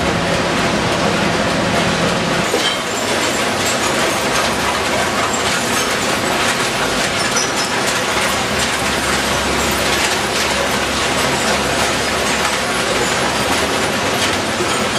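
Disc screen in a single-stream recycling sorting line running: a loud, steady machinery din with dense clatter as mixed cardboard, paper, plastic and bottles tumble over the spinning discs. A low hum drops away about two and a half seconds in.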